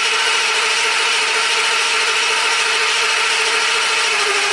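Ford V10 motorhome engine cranking steadily on its starter motor without firing, then cut off suddenly. It is a crank-no-start: the engine computer sees no engine revolutions while cranking, so there is no fuel or spark.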